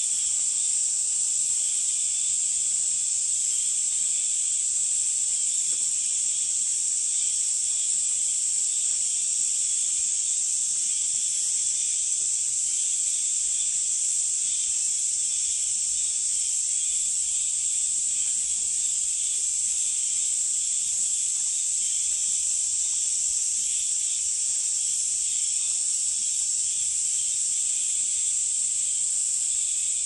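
A dense, steady, high-pitched insect chorus that does not let up, with a fainter lower buzz in it that flickers slightly.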